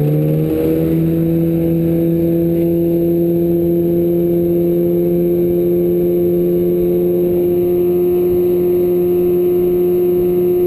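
Fishing boat's motor running under way; its pitch climbs briefly at the start, then holds steady at cruising speed.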